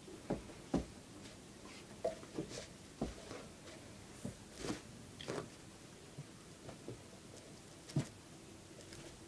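A dog paws at and mouths a rubber Kong toy lying against a plastic bag: scattered short knocks, thumps and rustles, the loudest about a second in and near the end.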